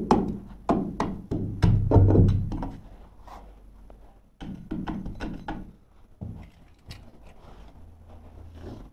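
Irregular knocks and thuds of hands pressing and working carpet into the edge along a door frame, heaviest about two seconds in, then quieter scattered taps.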